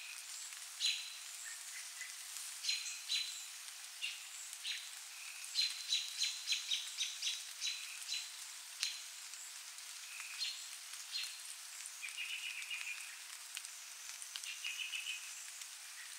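Night insects calling: irregular short, sharp, high-pitched clicking calls, quickening to a run of about three or four a second midway, with two brief trills near the end, over a steady high hiss.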